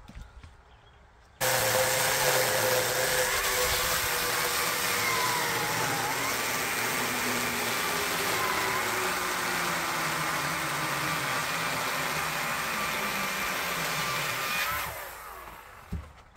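40-volt cordless chainsaw starting up about a second in and cutting into a log for about thirteen seconds, its motor pitch dipping and wandering under load, then winding down near the end.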